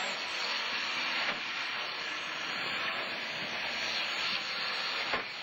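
Subaru Impreza WRC rally car's turbocharged flat-four engine running, heard from inside the cockpit as a steady, hissing din, with a sharp knock about a second in and another near the end.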